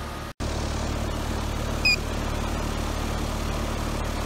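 ICP Carrier heat pump outdoor unit running in cooling mode: a steady low hum of the compressor and condenser fan. A short high chirp comes about two seconds in.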